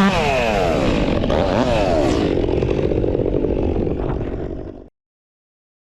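Stihl 362 two-stroke chainsaw with an Egan Straight Shot performance muffler coming off full throttle, its pitch falling steeply, with a short blip of revs about two seconds in. It then settles toward idle, and the sound cuts off abruptly near the end.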